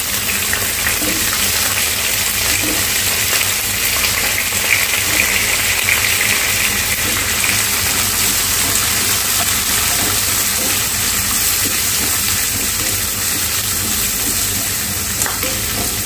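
Chopped onions sizzling in hot oil in a frying pan while being stirred with a wooden spatula: a steady, loud frying sizzle, with a light knock near the end.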